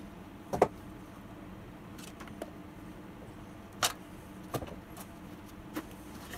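A few sharp metallic clinks and knocks, four of them spread over the seconds, from hands and tools handling an old LMM-6 outboard motor as its powerhead is being separated from the leg. A faint steady hum runs underneath.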